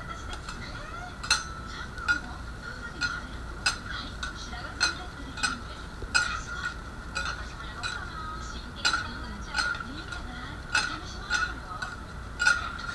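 Metal spatulas clinking and scraping on a hot iron okonomiyaki griddle: sharp clinks roughly once a second at an uneven pace, over a steady high-pitched tone in the background.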